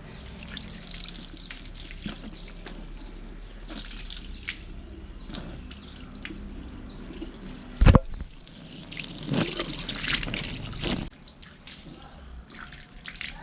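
Water trickling and dripping as a car battery's cells are flushed, with one loud thump about eight seconds in and a louder stretch of pouring for a couple of seconds after.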